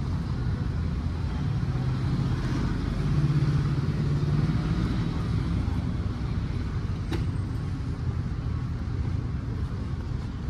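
A motor vehicle's engine running on the street, a low hum that swells about three seconds in and then eases off. A single sharp click about seven seconds in.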